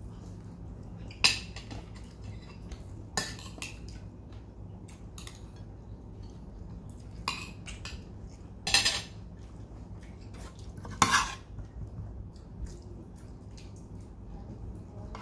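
Spoons and forks clinking and scraping against plates during a meal: about five sharper clinks a few seconds apart, with fainter taps between them, over a steady low hum.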